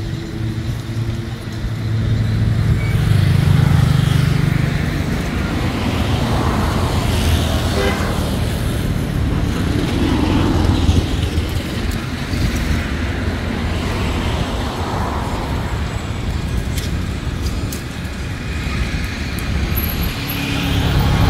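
Road traffic noise: vehicles running steadily, getting louder about two seconds in.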